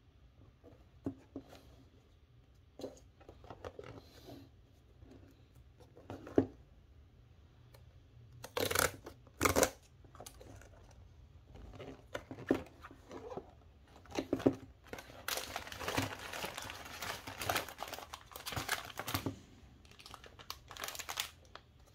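A paperboard snack box being torn open along its perforated strip, two sharp rips about halfway through, after a run of light taps and handling knocks. Then the crinkling of individually wrapped plastic donut packets being tipped out of the box and handled.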